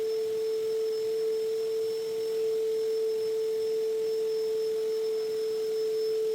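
A steady pure tone held at one mid pitch, unchanging throughout, like a test tone or a struck tuning fork held without decay.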